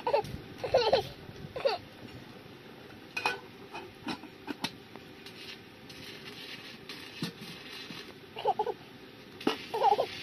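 A small child making short high-pitched vocal sounds, a few in the first two seconds and more near the end, with a few light clicks in between.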